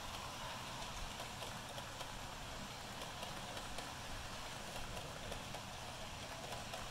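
Hornby OO-scale model train's coaches rolling along the track: a steady whir with faint scattered clicks from the wheels on the rails.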